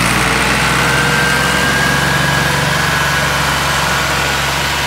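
Massey Ferguson tractor's diesel engine running loud and steady under heavy load as it pulls a fully loaded maize trolley.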